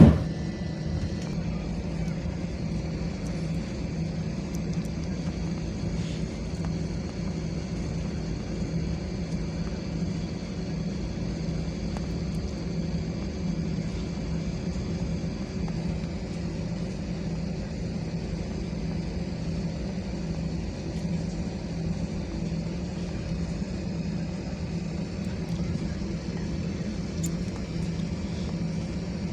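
Airliner cabin noise while taxiing: the jet engines' steady low drone with a faint high whine, heard from inside the cabin. A short loud bump right at the start.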